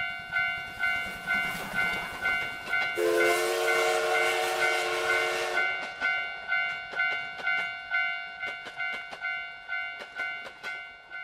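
Japanese railroad crossing's electronic warning bell ringing its repeated 'kan-kan' strokes, about two and a half a second. A train horn sounds for nearly three seconds from about three seconds in, over a rush of passing-train noise. After that come quick wheel clicks as the train goes through, with the bell still ringing.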